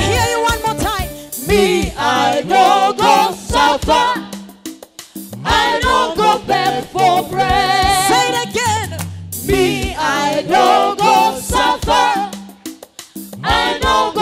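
Live gospel praise-and-worship song: voices singing with instrumental backing, easing off briefly about four seconds in and again near the end.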